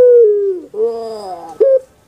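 Puter pelung (Barbary dove) cooing: the end of a long held note, which drops in pitch, then a lower gliding, gurgling phrase and a short final note.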